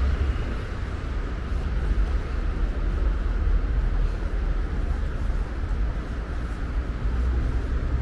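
Steady low rumble of city road traffic, an even wash of noise with no single vehicle standing out.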